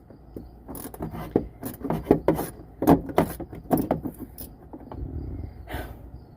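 A screwdriver working at a stubborn screw: irregular scraping, rubbing and clicking of the tool against the screw and the surrounding plastic, with the tool not gripping the screw well.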